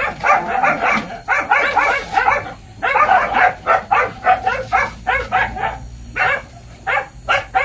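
Dog yipping and barking in quick runs of short, high-pitched calls, several a second, with brief gaps between the runs.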